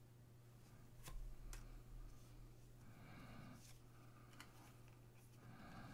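Faint handling of trading cards: two light clicks about a second in, then soft sliding and rustling as cards are moved against each other, over a steady low hum.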